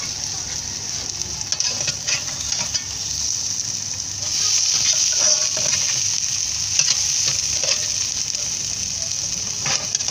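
Egg fried with chopped tomatoes and pepper sizzling in oil in an aluminium pan, the sizzle a little louder from about four seconds in. A slotted metal spatula scrapes and knocks against the pan now and then as the egg is turned and stirred.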